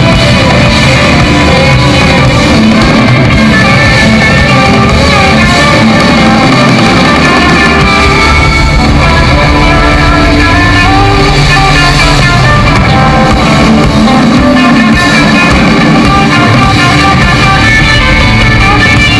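Rock band playing live: electric guitars and drums, loud and continuous.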